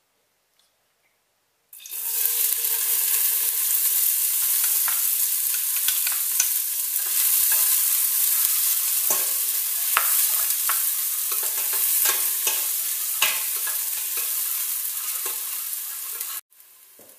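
Chopped onion sizzling in hot oil and ghee in a stainless steel pot as it is stirred with a spatula, with scattered clicks of the spatula against the pot. The sizzle starts suddenly about two seconds in and cuts off abruptly near the end.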